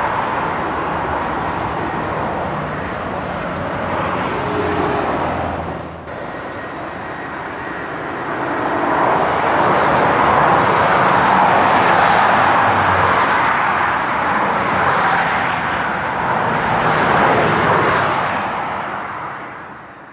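Jet engines of a departing Boeing 777-300 airliner: a loud, steady roar that changes abruptly about six seconds in, swells again, and fades out at the end.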